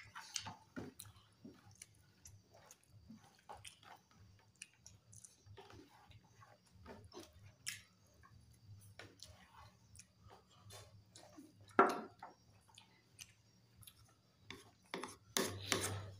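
Quiet chewing and eating sounds of people eating rice by hand: many scattered soft clicks and smacks. Near the end, a louder clatter of a spoon in a ceramic bowl.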